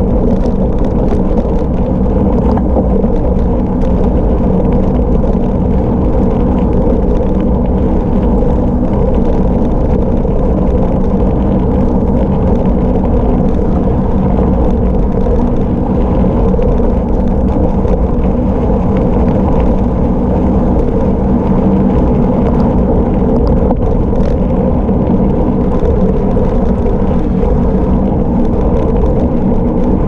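Steady loud rumble of a gravel bike descending at speed: wind buffeting the microphone over the hum of 40 mm tubeless tyres rolling on gravel, with faint scattered ticks of small stones.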